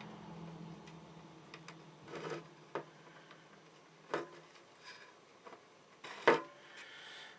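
Small parts and tools being handled on a workbench: a handful of light clicks and knocks, the sharpest about six seconds in, with a faint low hum dying away in the first half.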